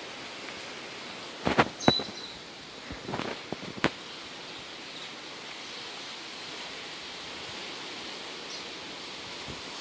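Steady outdoor ambience, an even rushing hiss, with a few sharp knocks between about one and a half and four seconds in and a brief high chirp around two seconds in.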